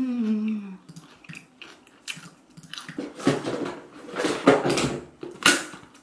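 A short falling 'mm' hummed with a full mouth right at the start, then rustling and knocking as a plastic wet-wipe case is picked up and handled, ending in a sharp click about five and a half seconds in.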